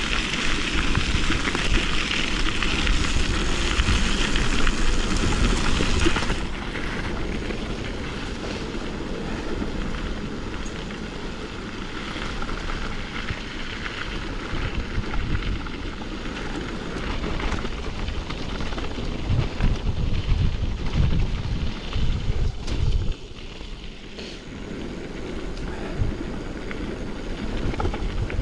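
Mountain bike rolling over a rough dirt trail: steady tyre and drivetrain rattle with wind buffeting the microphone, loudest and hissiest for the first six seconds. A run of low thumps from bumps comes in the back half.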